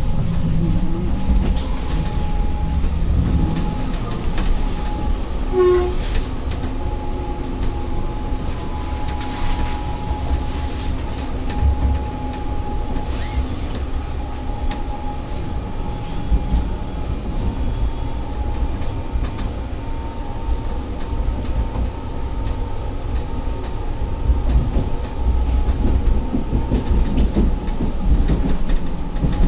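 Inside a moving 36WED electric multiple unit: steady low rumble of the running gear, with scattered wheel clicks over the rail joints and a thin steady whine above it.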